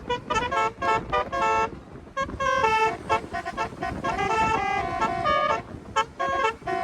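Telolet basuri car horns playing a tune: a quick run of short notes stepping up and down in pitch, with several notes often sounding together.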